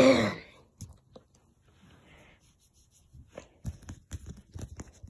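A short voice sound right at the start, then faint scattered clicks and a run of short taps and knocks of hand handling near the end.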